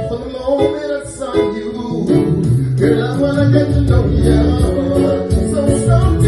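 A band playing a song at practice, with guitar over a steady bass line and a voice singing along.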